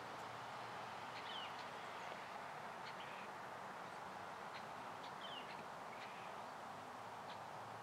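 Faint outdoor ambience: a steady hiss with a few short, high bird chirps, about a second in and again about five seconds in.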